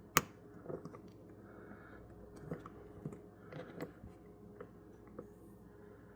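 Scattered clicks and light knocks of hands handling things, with one sharp click near the start, over a faint steady hum.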